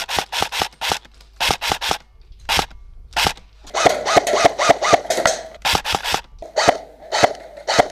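Airsoft gunfire: bursts of sharp clicks, about six a second, broken by short pauses. It comes as the player is being suppressed from the left.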